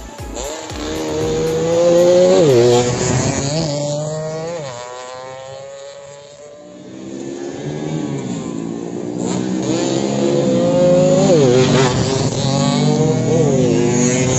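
Race-tuned underbone road-racing motorcycles accelerating hard past. Engine pitch climbs and drops sharply with each upshift. One bike is loudest about two seconds in and fades, and another builds up and passes around eleven seconds in.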